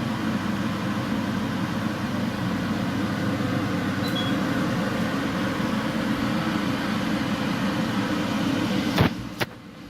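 Beko HCA62541B cooker hood's extractor fan running steadily at its top boost setting, level four: a loud rush of air over a low hum. Near the end come two sharp clicks, and the sound drops away.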